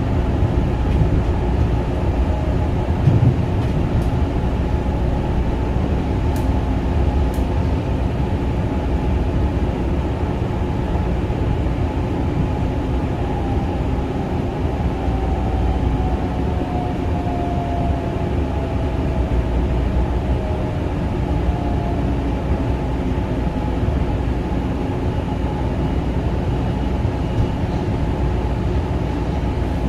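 Kawasaki M9 electric multiple-unit train running along the track: a steady rumble with a few held tones. Partway through, a faint whine slowly falls in pitch.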